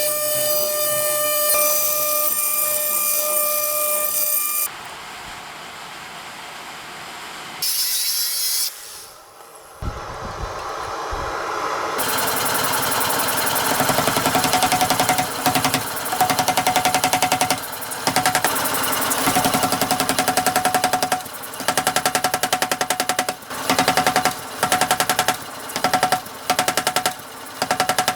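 Desktop CNC mill machining metal: the spindle whines steadily at first, then the cutter chatters rapidly in short runs that stop and start every second or two.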